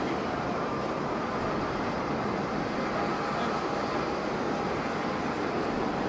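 Jet noise from an Airbus A350's Rolls-Royce Trent XWB engines as the airliner climbs out after takeoff: a steady rushing sound with faint whining tones in it.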